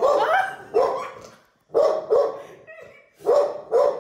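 A dog barking about six times, mostly in quick pairs of short, loud barks.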